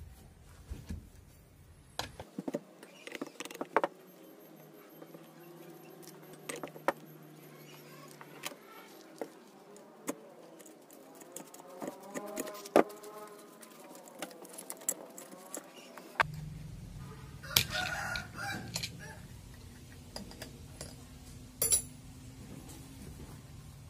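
Sharp metal clinks and knocks of a T-wrench and loose nuts against a chainsaw as its clutch cover is unbolted and lifted off the guide bar. A rooster crows in the background about halfway through.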